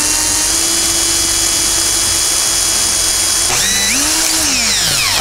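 Electric drill with a 1/8-inch bit drilling a hole through a butter knife blade. The motor runs at a steady pitch, dips and speeds up again about three and a half seconds in, and winds down near the end.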